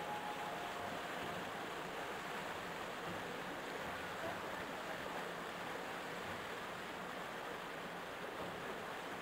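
Steady rush of water along the hull of a moving lake boat, with a faint steady engine hum underneath.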